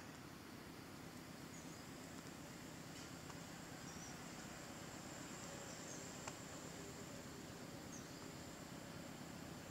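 Quiet rural outdoor ambience: a faint steady hiss under a thin, high, continuous insect buzz, with a few faint short chirps and one small click about six seconds in.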